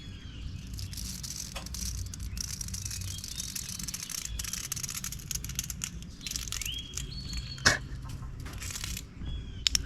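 Outdoor background with a steady low rumble, a few light clicks and rattles and one sharper knock about three-quarters of the way through. Two short bird chirps come near the end.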